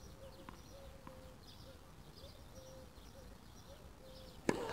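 Faint birds chirping in the background, then near the end one sharp tennis-ball impact, followed by a lighter knock.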